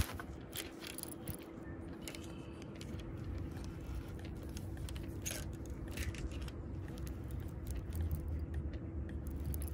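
Baitcasting reel being cranked on a lure retrieve, its gears giving off scattered small clicks and ticks. Wind rumbles on the microphone from about three seconds in.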